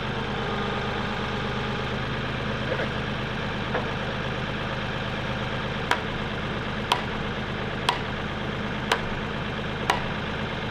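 Compact tractor engine idling steadily while a fence post is driven from above with a hand post driver, sharp strikes coming about once a second from about six seconds in.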